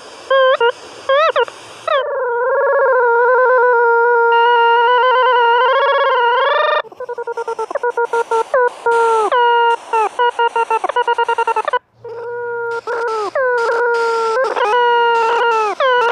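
Synthesized tones from the Desmos graphing calculator's sound output, one pitched note that swoops and wavers like a howl. It starts as short chopped blips, then holds a long wavering tone for several seconds, then breaks into rapid stuttering blips that each dip in pitch before settling, with a brief cut-out about three quarters of the way through.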